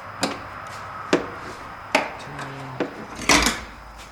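Separate sharp knocks and clinks of hand tools and parts being handled in an engine bay, about four of them, then a louder scraping clatter about three seconds in.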